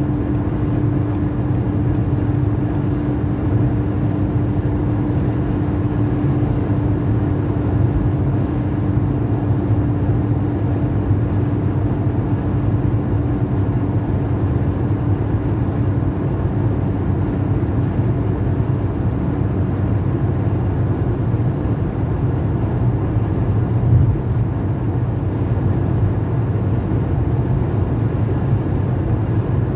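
Steady car road noise at motorway speed heard from inside the cabin: a low drone of tyres and engine. A faint steady hum in it fades away about halfway through.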